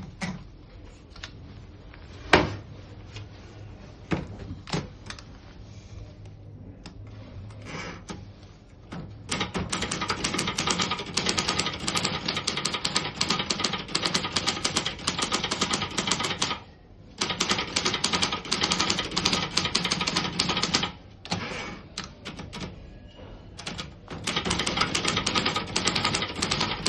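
Silver Reed Silverette II portable manual typewriter being typed on. A few scattered clicks and knocks, one sharp and loud about two seconds in, give way about nine seconds in to fast runs of keystrokes. The runs are broken by short pauses.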